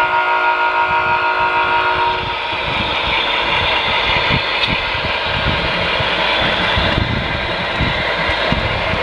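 HO scale model freight train rolling past: a steady multi-tone horn sounds until about two seconds in and cuts off, then the rumble and quick irregular clicking of the cars' wheels on the track.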